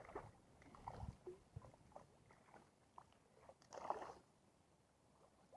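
Faint, scattered small splashes at the water's surface, the loudest about four seconds in: a hooked trout thrashing on the line near the bank.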